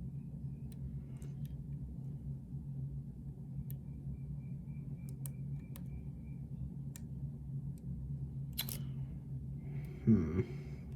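Faint, scattered ticks and scrapes of a lock pick and tension tool working the pins inside a lock, over a steady low hum, with one sharper click about three-quarters of the way through.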